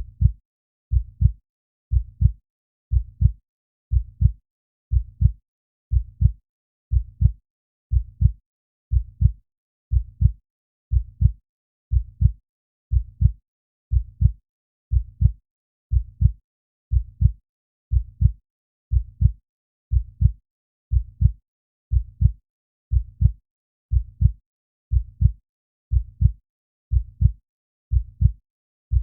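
A heartbeat: a slow, steady lub-dub, two low thuds close together about once a second, with silence between beats.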